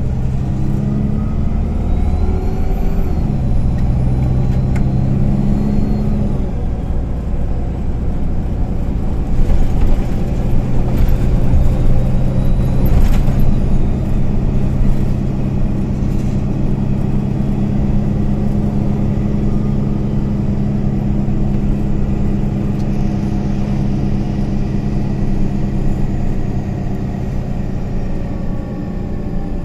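MAN Lion's City A20 NL city bus's rear-mounted diesel engine and drivetrain running under way, heard from inside the passenger cabin along with road noise and rattles. The engine note rises over the first few seconds, drops about six seconds in, then holds steady.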